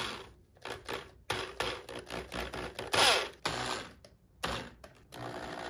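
Irregular clicks and knocks of a plastic chin spoiler and tools being handled, with a brief louder burst about three seconds in; near the end a cordless drill (screw gun) starts running steadily.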